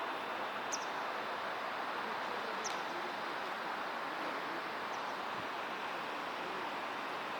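Steady noise of a JR West 225 series electric train standing at a station platform, with three faint short bird chirps.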